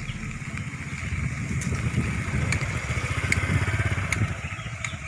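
Small motorcycle engine running with a fast, low putter.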